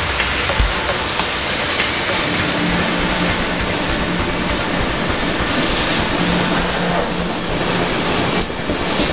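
Steady loud hiss of a Prima Domino 5-axis laser cutting head's assist-gas jet as it cuts sheet metal, with a faint low hum under it.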